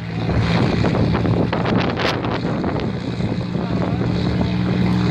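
Aircraft engine running close by, a steady low hum, with wind buffeting the microphone and a few short knocks.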